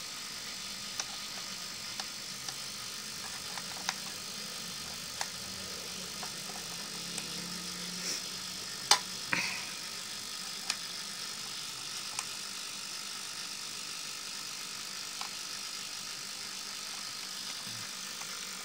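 Scattered light clicks and taps of a hand handling the plastic battery holder inside an old Philips radio, with a sharper pair of clicks about nine seconds in, over a steady background hiss.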